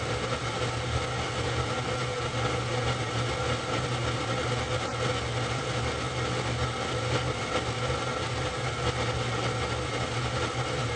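Super 8 film projector running, a steady mechanical whir and hum that does not change.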